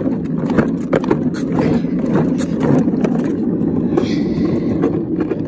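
Hard wheels of a ride-on police car rolling over a concrete sidewalk: a steady rumble with frequent clicks and knocks.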